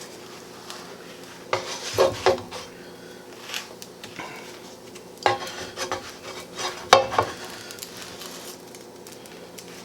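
Kitchen utensils clinking and knocking against a skillet and dishes, a few separate sharp knocks about a second and a half, two, three and a half, five and seven seconds in, over a faint steady background.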